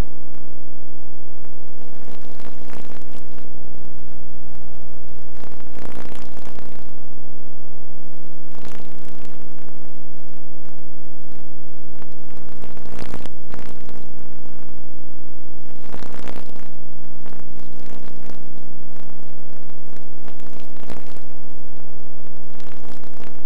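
Loud, steady electrical hum with a buzz of many overtones, broken by occasional crackles, like mains hum on a recording's audio track. The lowest part of the hum drops away about a third of the way in and returns about two-thirds in.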